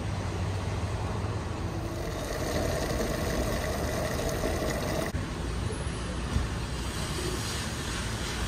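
Diesel fuel running from a pump nozzle into a vehicle's tank: a steady rushing with a low hum from the pump. It changes abruptly about five seconds in.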